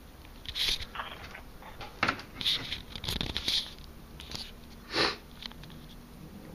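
Scattered short rustling and scratching noises with a few sharp clicks, the loudest about five seconds in.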